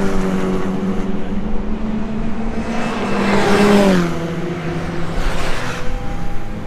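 Track cars passing at speed on a race circuit, each engine note swelling and then dropping in pitch as it goes by, once at the start and again about four seconds in.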